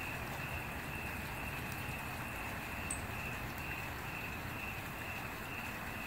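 A steady chorus of night insects, a high pulsing trill, over a low even hiss from a wood fire burning in an outdoor metal fireplace. One faint crackle comes about three seconds in.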